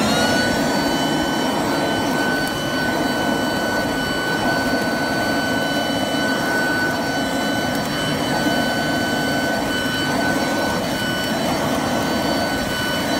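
Ryobi RBV3000CESV electric leaf blower/vacuum winding up right at the start, then running steadily with a high whine. It is in vacuum mode but no longer sucking up or mulching the leaves, which the owner takes for a broken vacuum.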